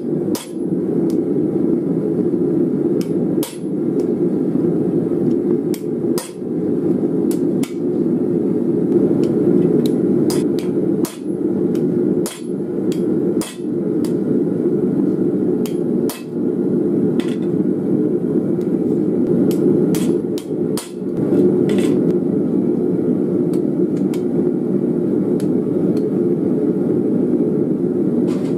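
Hand hammer striking red-hot file steel on an anvil, through a tool held upright on the blade: sharp, irregular blows about every one to two seconds that stop about three-quarters of the way through. A steady low roar runs underneath the whole time.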